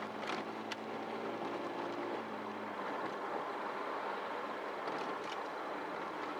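Inside the cabin of a GAZ-20 Pobeda rebuilt on a Toyota Mark II chassis, driving: the Toyota 2.5-litre straight-six gives a steady hum over tyre and road noise. About three seconds in the engine hum drops away, leaving mostly road noise. There are two light clicks in the first second.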